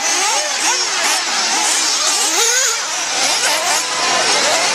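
Several 1/8-scale nitro RC buggy engines (small two-stroke glow engines) revving up and down. Many overlapping whines rise and fall in pitch as the buggies accelerate and lift off through the corners.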